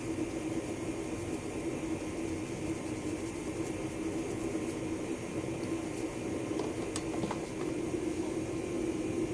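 Steady background hum with hiss, and a few faint small clicks about seven seconds in.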